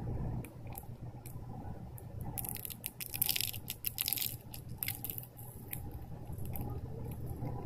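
Steel needle tool scratching a groove into half-set plaster, heard as a run of fine gritty scrapes and clicks that are densest from about two and a half to four and a half seconds in.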